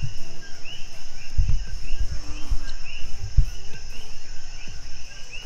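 Night insect chorus: a steady high hum with short chirps repeating several times a second. A few low thumps on the microphone come between about one and a half and three and a half seconds in.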